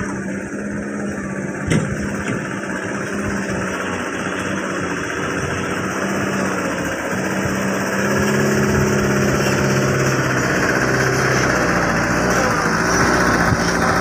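Diesel engine of a loaded dump truck pulling across a dirt site and passing close by, a steady engine drone that grows louder and lower about eight seconds in as the truck nears. A single sharp knock comes just before two seconds in.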